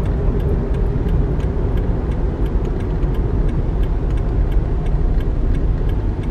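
Steady low rumble of a car driving, with faint light ticks repeating at an even pace.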